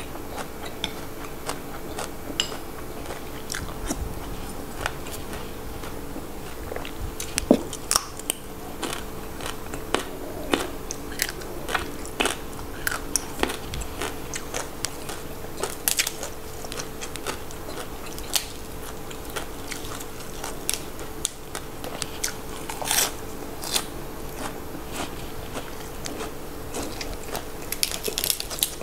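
Close-miked chewing of fresh raw vegetables and frog chili dip, with many irregular crisp crunches.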